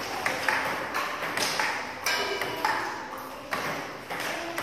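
Table tennis balls struck in quick succession during multiball practice: sharp clicks of bat on ball and ball bouncing on the table, several a second.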